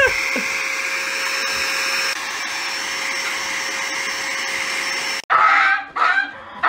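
Handheld electric air duster for cleaning computers blowing steadily: a strong hiss with a held tone. It cuts off suddenly about five seconds in.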